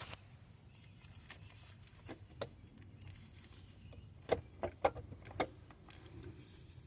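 Scattered sharp clicks and knocks of hand tools and parts being handled, with a quick cluster of four about four to five and a half seconds in, over a low steady hum.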